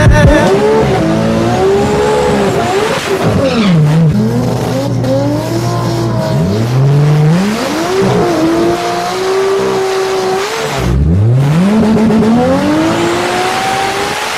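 Drag car's engine revving hard over a noise haze, its pitch climbing and dropping back sharply several times, with tire squeal: a burnout before a pass.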